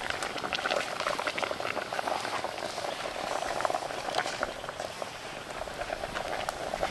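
Water at a hard boil in a metal pot over a wood fire: steady bubbling scattered with many small pops.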